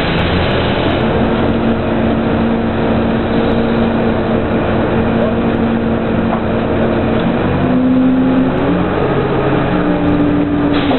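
Drilling rig machinery running loudly while a pipe connection is made: a steady engine hum whose pitch steps up about seven seconds in and again about nine seconds in.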